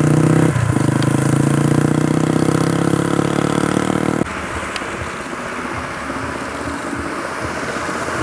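Motorcycle engine running close by at a steady pitch as it pulls away, with a brief break about half a second in. It cuts off abruptly about four seconds in, leaving a quieter, steady rushing noise.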